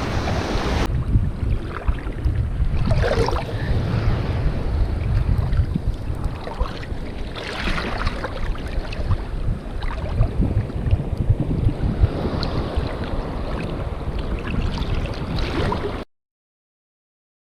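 Wind buffeting the microphone over surf washing onto the beach, a steady rumbling noise with waves swelling through it now and then. The sound cuts off abruptly to silence near the end.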